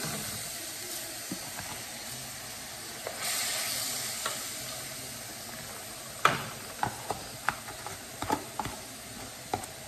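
Washed rice sizzling as it is poured into hot oil and toasted garlic in a metal pan, being toasted before the water goes in. A wooden spoon stirs it, knocking sharply against the pan several times from about six seconds in.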